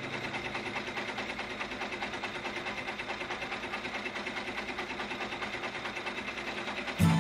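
Brother Entrepreneur six-needle embroidery machine stitching an applique design, its needle running at speed in a steady, rapid rhythm.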